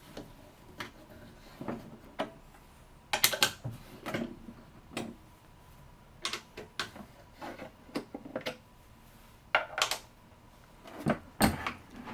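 Scattered clicks and light knocks, in small clusters every second or two, from the mini band saw's door being taken off and handled.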